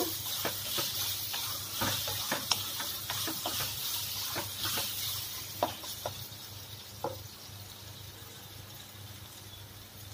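Corn kernels and onions frying in oil in a metal wok, a steady sizzle, with a spatula scraping and tapping against the pan as they are stirred. The stirring stops after about seven seconds, leaving only the sizzle.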